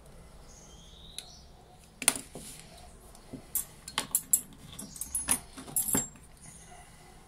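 Small metal parts of a Saffa 10 lighter clicking and clinking as its insert is worked out of the case and handled by hand. There is one sharp click about two seconds in, then a quick run of lighter clicks over the next two or three seconds.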